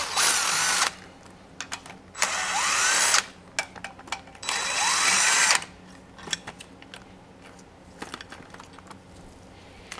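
Impact gun running in three bursts of about a second each, spinning out the hand-loosened bolts of the oil filter assembly on a Honda J30A4 V6 block, followed by light metallic clicks.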